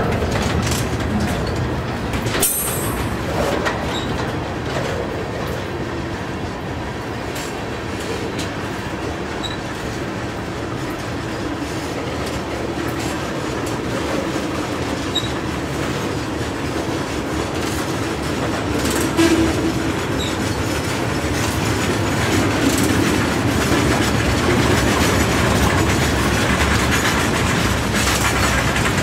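Freight train's tank cars rolling past close by: a steady rumble of steel wheels on the rails, with a sharp click about two and a half seconds in.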